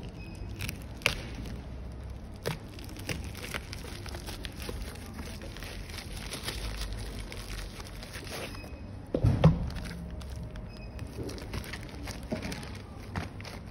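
Plastic parcel packaging crinkling and rustling as hands tear it open, with many small sharp crackles. About nine seconds in there is a single louder knock as a cardboard product box is handled.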